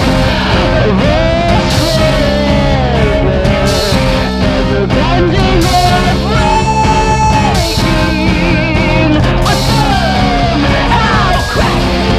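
Rock band recording playing, with drums, bass and electric guitars. A lead melody line slides and bends in pitch over a steady beat.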